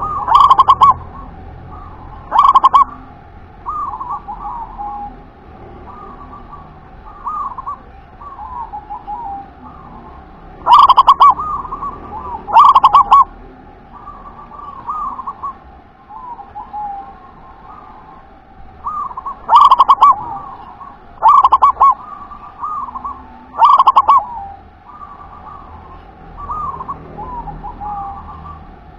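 Zebra dove (perkutut) cooing over and over in short rolling phrases. Seven much louder notes stand out, loud enough to distort.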